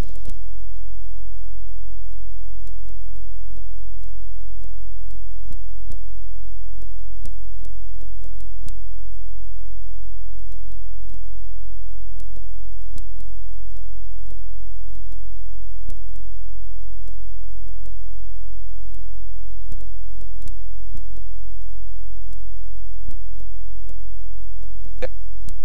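Loud, steady low electrical mains hum on a blank audio track, with faint clicks scattered through it.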